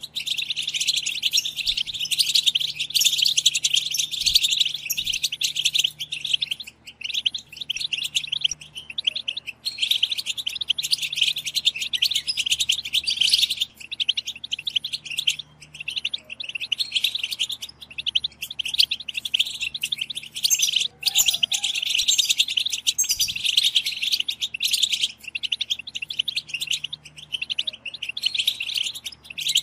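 A chorus of European goldfinches giving dense, rapid twittering calls, broken only by brief pauses. This is the 'btbta' chatter of female goldfinches ready to breed, the call that excites males into song.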